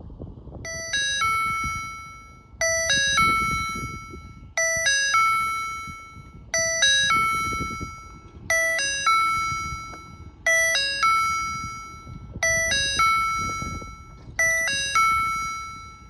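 Polish railway level crossing's electronic warning signal sounding a doorbell-like chime: a few quick ding-dong notes ending in a held, fading tone. It starts under a second in and repeats about every two seconds, eight times.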